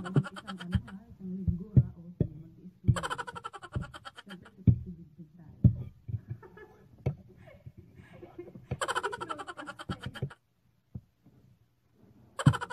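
Eating sounds: sharp clicks of a fork and spoon against a plate and chewing of noodles. The same short, laugh-like sound clip recurs every few seconds.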